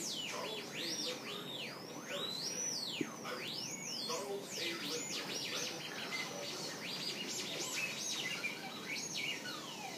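Crystal radio set giving static: a steady hiss with many quick whistles that sweep up and fall back in pitch, one after another.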